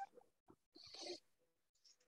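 Near silence: a couple of faint, short hissy rustles near the microphone, with a soft click about half a second in.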